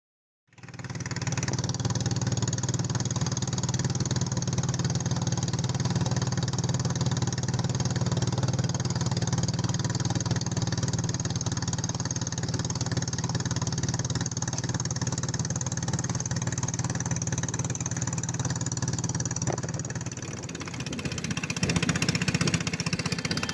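A small engine running steadily, cutting in abruptly about half a second in. Its level dips slightly and rises again near the end.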